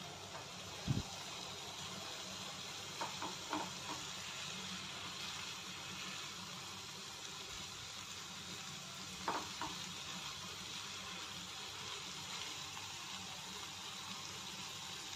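Tomatoes, onions and dried red chillies frying with a steady, quiet sizzle in a non-stick pan over a low flame, with a few soft taps of a spatula stirring them.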